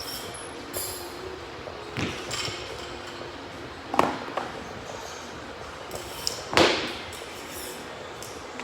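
Three scattered knocks and clanks of gym equipment being handled, the loudest and longest one near the end.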